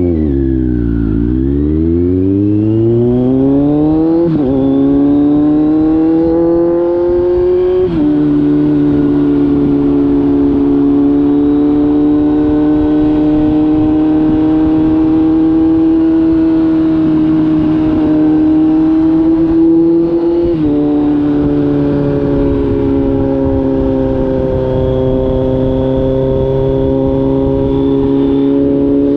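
Kawasaki Z900's inline-four engine through an SC-Project aftermarket exhaust, pulling up through the gears. The pitch dips at the start, then climbs with two quick drops a few seconds apart as it shifts up, runs fairly steady for a long stretch, drops once more on another upshift about two-thirds of the way in, and begins to climb again near the end.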